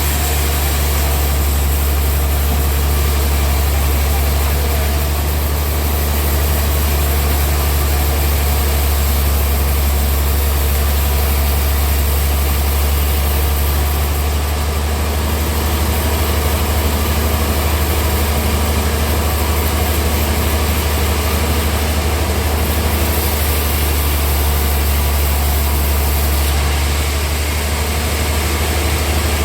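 Sawmill machinery running: a steady, unchanging low engine drone.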